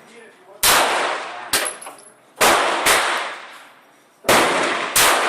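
Radom Vis 35 (P35) 9mm pistol firing six shots at an uneven pace, roughly a second apart with two pairs closer together, each crack trailing off in a ringing echo.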